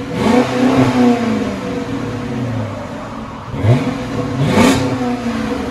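Chrysler 300C's 5.7-litre HEMI V8 revved at the tailpipe through a dual exhaust with Flowmaster 40 Series mufflers in place of the factory muffler, the resonators still fitted. It is blipped once at the start, falling back toward idle, then twice in quick succession near the end.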